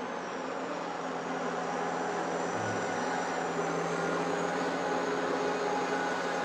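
Steady drone of a Caterpillar rubber-tracked tractor's engine and cooling fan running, growing slightly louder.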